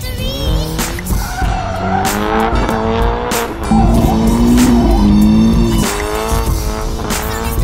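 Scion FR-S's flat-four engine revving up and down hard as the car drifts, with tyres squealing, over background music.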